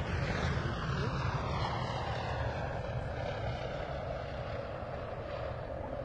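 Douglas DC-3's twin radial piston engines running as the aircraft rolls past on its main wheels and draws away, the sound fading slowly with a falling, whooshing sweep.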